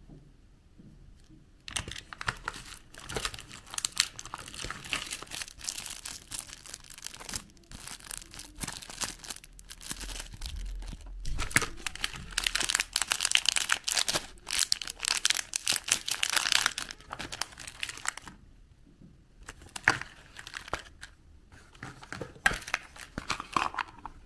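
Thin clear plastic toy bag crinkling and tearing as it is handled and ripped open by hand, close to the microphone. The crackling starts about two seconds in, stops for about a second later on, then comes back in shorter bursts.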